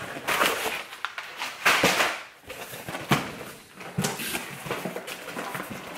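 Cardboard shipping box being opened and rummaged: the flaps scrape and rustle and plastic-bagged fishing baits crinkle inside, with a few sharp knocks, the loudest about a second and a half and three seconds in.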